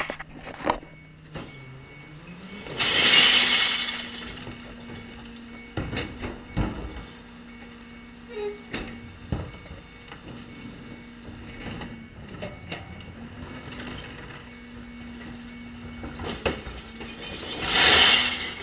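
Rear-loading garbage truck working at the kerb: its engine revs up about two seconds in and then holds a steady hum, while plastic wheelie bins knock against the back of the truck. Two loud bursts of air hiss come about three seconds in and near the end.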